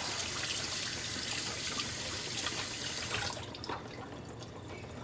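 Water running from a tap, a steady hiss with small clicks over it, cut off a little over three seconds in.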